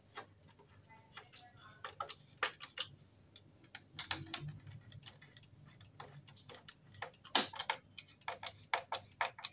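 Hand screwdriver driving a screw into a wooden cot frame: a run of irregular clicks and ticks as the screw is turned.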